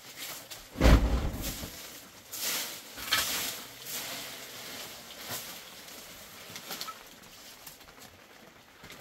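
A twig broom sweeping and a long-handled shovel scraping dry leaves and dirt across an earthen floor, in irregular strokes. There is a heavy thump about a second in.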